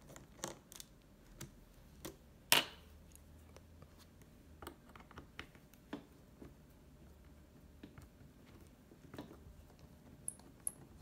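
Scattered light clicks and taps of hands and a small screwdriver working at a laptop's plastic base while its screws are taken out, with one sharper click about two and a half seconds in.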